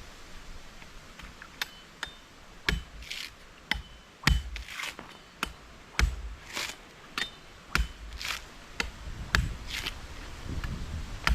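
Machete chopping coconuts: a series of sharp strikes roughly once a second, mixed with short swishing sounds.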